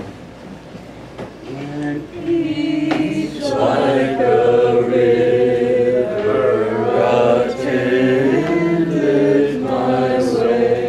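Congregation singing a hymn a cappella, with no instruments. The singing starts softly about two seconds in and grows full about a second and a half later.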